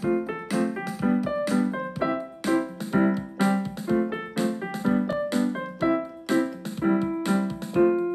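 Intro theme music on a keyboard: a steady, even rhythm of short struck piano-like notes.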